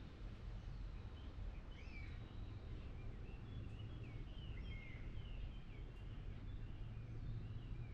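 Several small birds chirping in quick short calls, most densely through the middle, over a steady low rumble.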